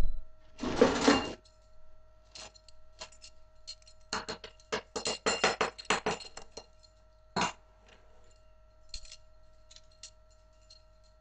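Quick sharp clicks and clinks on a wooden floor from two Savannah kittens playing rough, with a scuffling clatter about a second in and a fast run of clicks between about four and seven seconds in. A faint steady high tone lies underneath.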